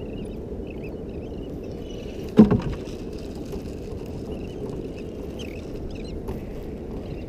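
Small skiff drifting on calm water: a steady low wash of water and wind, with a single sharp knock about two and a half seconds in.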